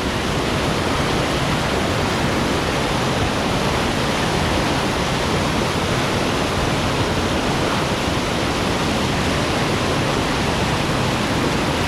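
Steady, loud rush of high water pouring through a flooded spillway, an even unbroken wash of noise.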